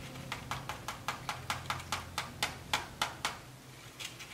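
Fingers tapping on a small cardboard foraging box, quick light taps about five a second for some three seconds, then two more near the end.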